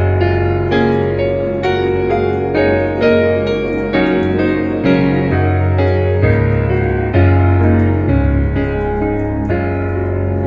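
Piano music: sustained notes and chords, a new one struck about once a second.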